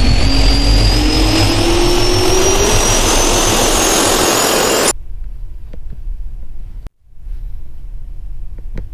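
Jet-engine spool-up sound effect: loud rushing noise with a steadily rising whine that cuts off abruptly about five seconds in. Quieter background follows, with a brief dropout and a faint click near the end.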